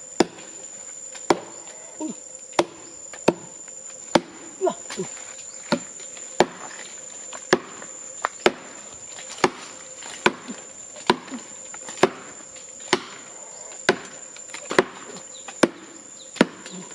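Sharp knocks repeating steadily, a little under one a second, over a steady high-pitched insect drone.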